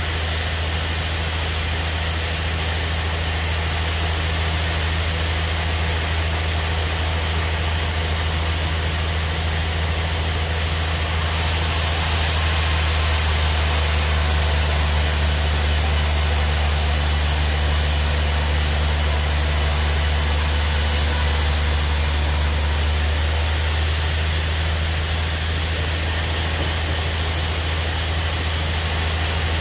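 Band sawmill running, with a steady low motor hum throughout. About ten seconds in, a louder, brighter hiss joins for some twelve seconds as the blade cuts through a log, then drops away.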